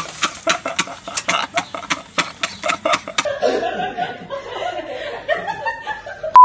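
People laughing, in quick bursts for about three seconds, then quieter giggling and murmuring. A loud steady beep cuts in at the very end.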